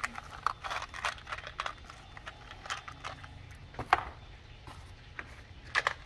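Irregular small clicks and ticks of hands handling wires and small crimp connectors, with a couple of sharper clicks about four seconds in and near the end, over a low steady hum.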